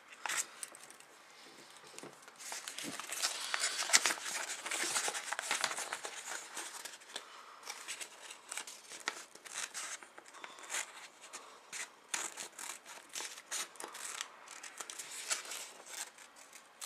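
Scissors cutting sheet paper: a long run of short snips, with paper rustling and crinkling as the sheet is turned.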